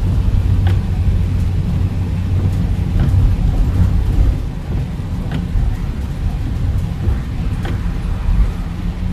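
Car driving: a steady low rumble of engine and road noise, with a light click about every two seconds.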